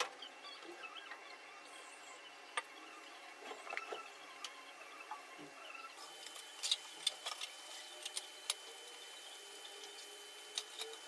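Faint scattered clicks and light taps of kitchen handling, a knife working at an onion's papery skin as it is peeled, over a faint steady high tone.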